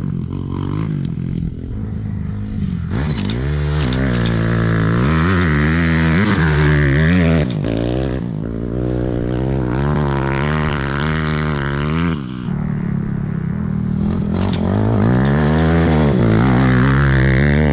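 Off-road race vehicle engines revving up and falling back again and again, over a steady low engine drone.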